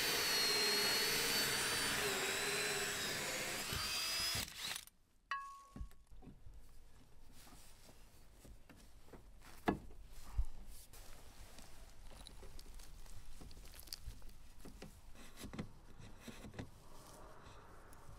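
Cordless drill running for about four and a half seconds, its motor whine wavering in pitch as it drives a screw through a PVC electrical box into the wall, then stopping. After that come faint scattered clicks and knocks of handling.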